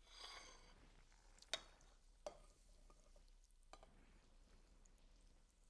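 Near silence with a brief faint scrape at the start and a few faint clicks and knocks of dishware and a serving utensil, the sharpest about a second and a half in.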